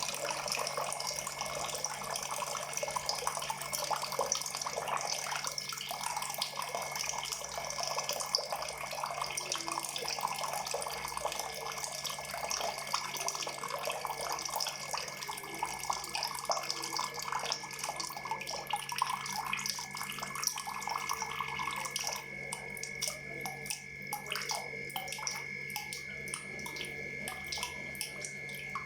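Water pouring and splashing in a continuous stream. About three quarters of the way through it thins out into separate drips.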